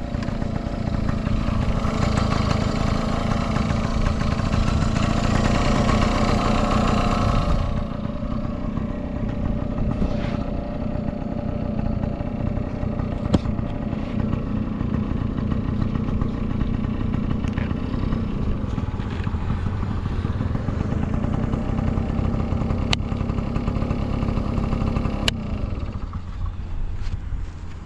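Yamaha Passol D S50D scooter's small two-stroke engine running, which the seller describes as free of abnormal noise. It runs harder and louder for the first several seconds, settles to a lower, steady note about eight seconds in, and falls away near the end, with a few sharp clicks in between.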